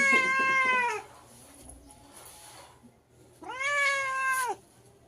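Domestic cat meowing: two long, drawn-out meows about three seconds apart. The first is already under way and ends about a second in; the second starts about three and a half seconds in. Each drops off in pitch at its end.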